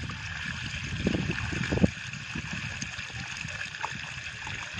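Water pouring and gurgling through a cut in a mud bank, a steady rush, with some uneven low rumbling during the first two seconds.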